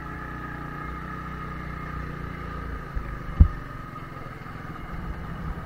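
Motorcycle engine running steadily while riding slowly, heard from the rider's helmet. A single sharp thump comes about three and a half seconds in.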